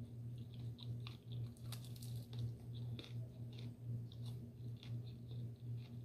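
Close-miked chewing of food, with many short mouth clicks, over a steady low hum.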